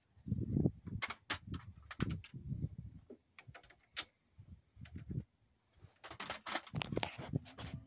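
Metal sockets and a ratchet clinking and tapping against the brake caliper bolts as socket sizes are tried, with scattered low rumbling noise in between.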